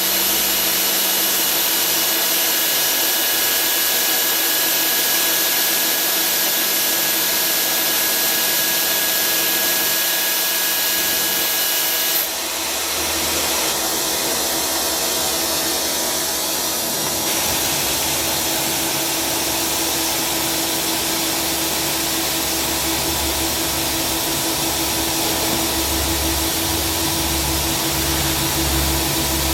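Tsugami SS32 Swiss-type sliding-headstock CNC lathe running: a steady machine noise with several steady whining tones. About twelve seconds in, the highest whine cuts off abruptly and a lower hum comes in.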